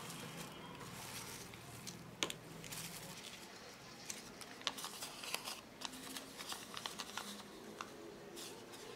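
Clear plastic packaging bag crinkling and crackling in the hands as a replacement soldering-iron heating element and its paper label are taken out and handled, with a busy run of small sharp crackles.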